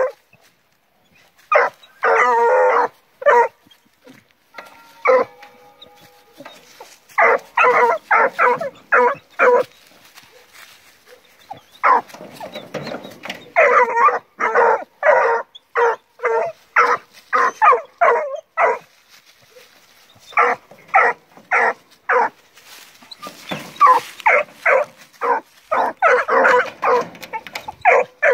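Blue Gascony griffon cross puppies barking and yelping at a caged rabbit, in quick runs of several barks with short pauses between, and a drawn-out whine about five seconds in. It is the excited giving of voice of young scent hounds at first sight of game.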